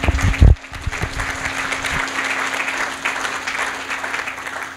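Audience applauding, fading out near the end, with a loud thump about half a second in and a steady low hum underneath.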